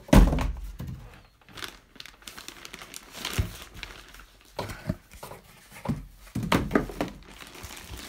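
Plastic bag wrapped around a new oscilloscope crinkling and rustling in bursts as hands grip and lift the bagged unit, with a loud thump just after the start.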